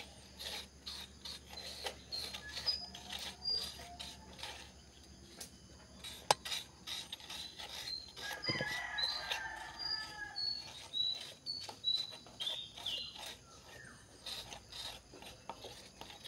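A metal spoon scraping the soft flesh out of a halved young coconut, in many short repeated strokes against the shell, with a sharp click about six seconds in. Short high bird chirps come and go in the background.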